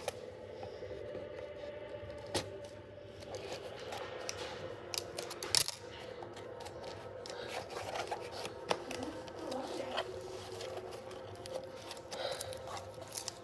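Scissors cutting open a cardboard package and the packaging being handled, with scattered sharp clicks and knocks, the loudest about five and a half seconds in.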